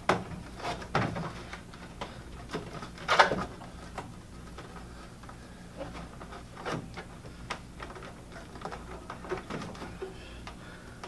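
Corrugated plastic defroster duct hose being worked by hand onto its vent outlet: irregular rustling, scraping and clicking of the ribbed plastic, with the loudest scrape about three seconds in.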